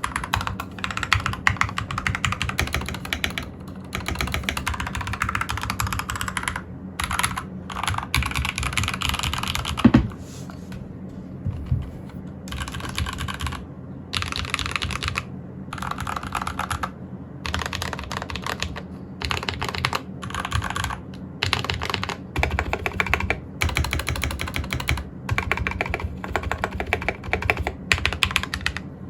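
Typing on a custom-built Anne Pro 2 60% mechanical keyboard with lubed Akko Lavender Purple switches: fast runs of keystroke clacks broken by short pauses, with one louder thump about ten seconds in.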